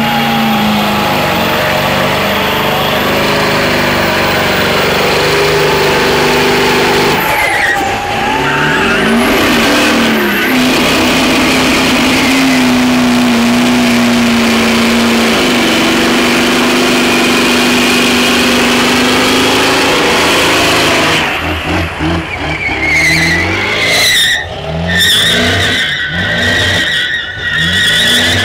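Old pickup truck doing a burnout: its engine held at high revs with the rear tyres spinning in smoke, the pitch dipping and climbing back a couple of times. After about twenty seconds the engine lets off and the sound turns choppy and uneven.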